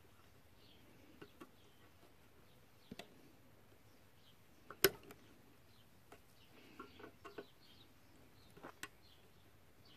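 Small clicks and taps of a screwdriver and metal parts at a bread maker's small motor pulley, as its retaining clip is worked onto the shaft. A handful of clicks are scattered through, the sharpest about five seconds in.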